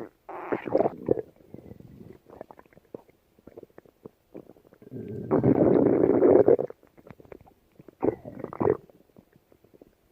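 Stomach growling: a short rumble in the first second, a longer and louder growl of about a second and a half in the middle, and two brief growls a little after eight seconds, with faint crackling between them.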